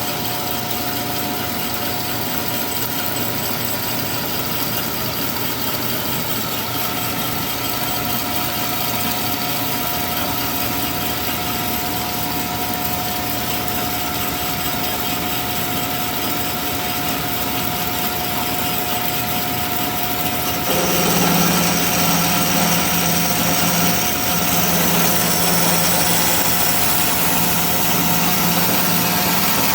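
Large dual-column horizontal metal-cutting bandsaw running with a steady hum. About two-thirds of the way through the sound grows louder and a deeper hum joins it as the blade starts cutting into the metal stock.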